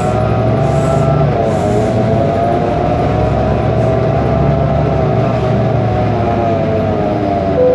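BMC Belde city bus's Cummins ISBe turbo diesel running under way, heard from inside the bus: a steady low drone with a whine that drifts gently up and down in pitch. The uploader calls the engine faulty.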